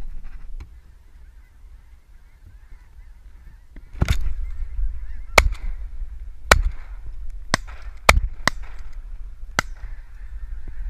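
A large flock of snow geese calling overhead in a steady mass of honking chatter. About four seconds in, shotguns begin firing: about seven sharp shots over the next six seconds, some close together.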